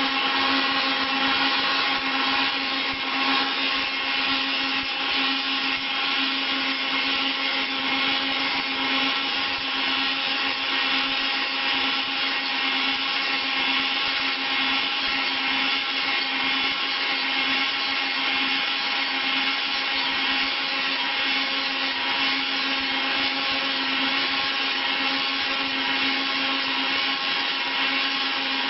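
Wood copy milling machine running steadily: a high-speed motor's even whine, several constant tones over a hiss.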